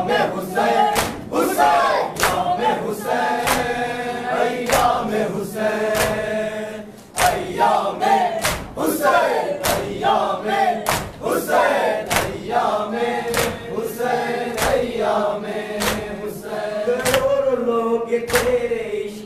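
A group of men chanting a Muharram noha (lament) in chorus, with hands striking chests (matam) in a steady beat of somewhat under two strikes a second.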